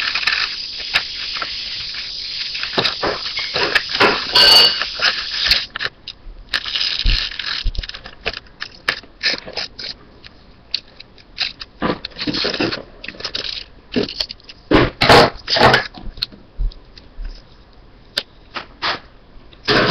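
Scissors cutting paper and the paper being handled: a steady rustle for the first few seconds, then a long run of short snips, crackles and scrapes.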